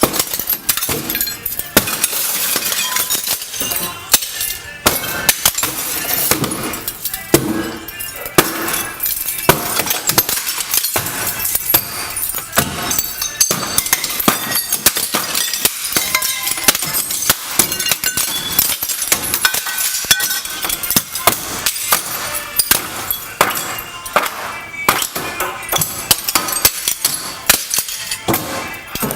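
Broken concrete chunks clattering and crashing against one another in a dense, continuous run of sharp impacts, as demolition rubble is tossed and piled.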